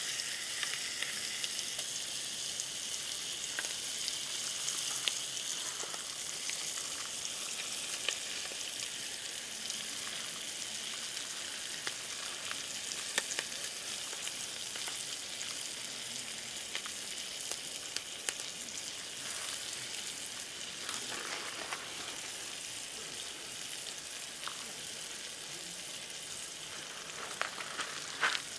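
Steady sizzling hiss with scattered crackles and pops, from food cooking over a wood campfire.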